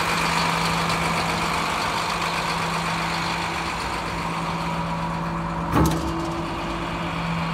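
A 2016 International DuraStar 4400 rollback truck's diesel engine idling with a steady hum. A short thump comes near the end.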